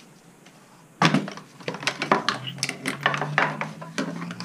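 Plastic clip-on trim pieces clicking and knocking as they are unclipped and handled, a quick irregular string of sharp clatters starting about a second in.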